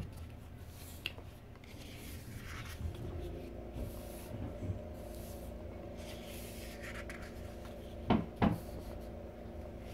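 Photobook pages being turned and rubbed by hand, soft paper rustles. A faint steady hum sits underneath from about three seconds in, and there are two short, louder sounds about eight seconds in.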